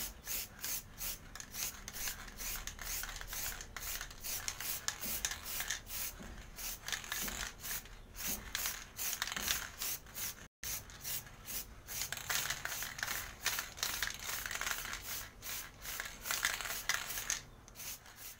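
Aerosol spray paint can hissing in quick short bursts, about three a second, as a second and final coat of black metallic paint goes onto a helmet's plastic peak.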